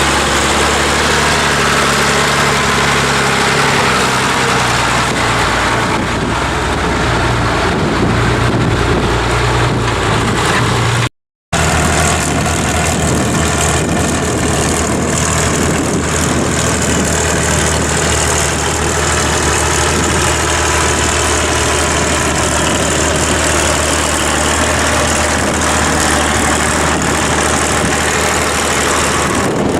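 Tractor's six-cylinder diesel engine working under load, pulling a plough, with wind rushing over the microphone. The sound drops out briefly about a third of the way in and resumes with a slightly different engine note.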